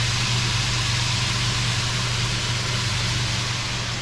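Diced butternut squash frying in a pan with a steady sizzle, over a steady low hum.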